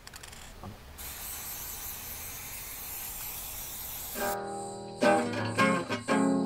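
A steady hiss, then acoustic guitar music starting about four seconds in, plucked and strummed chords that get louder about a second later.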